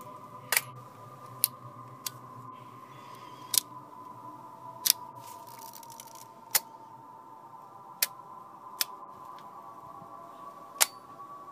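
Shutters of vintage film cameras (a Kodak Six-20 Brownie E box camera, a Yashica Electro rangefinder and a Polaroid Automatic 220 Land Camera) being fired one at a time. About nine sharp single clicks come at uneven intervals, a second or two apart, over a faint steady hum.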